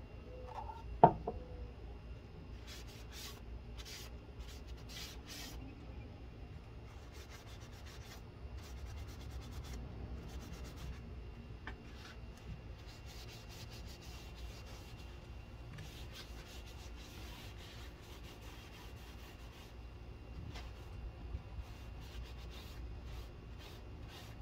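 A finishing product being rubbed onto a wooden shelf board by hand, in spells of short rubbing strokes with pauses between them. A single sharp knock about a second in is the loudest sound.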